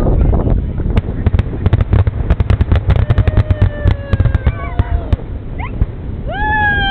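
Fireworks going off in a rapid run of sharp cracks and pops, with several long falling whistles over a steady low rumble, and a rising-then-falling whistle near the end.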